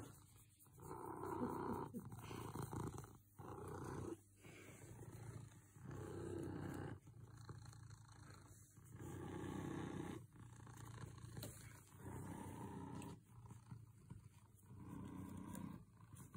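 Domestic cat purring contentedly while being stroked. The rumble swells and drops with each breath in and out, about once every second and a half.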